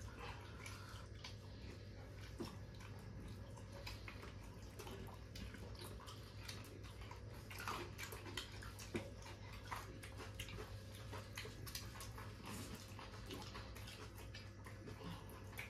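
Faint eating sounds: irregular small clicks and taps of hands mixing rice and curry on steel plates, and chewing, over a steady low hum.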